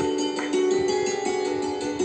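Background music: a plucked string instrument playing notes over a steady held drone.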